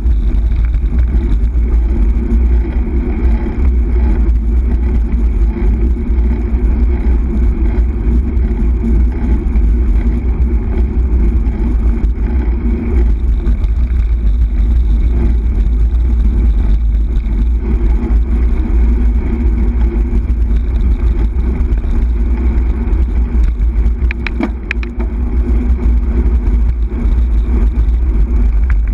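Steady wind rumble buffeting the microphone of a bike-mounted camera on a moving road bike, with tyre and road noise underneath. A few sharp clicks come near the end.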